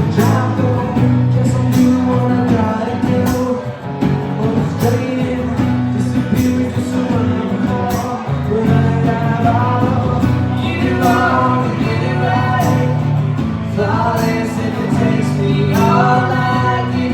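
Band playing a song: guitar and drums keeping a steady beat, with a voice singing lines over it partway through.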